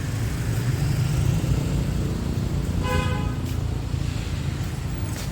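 Street traffic running steadily, with a single short vehicle horn toot about three seconds in.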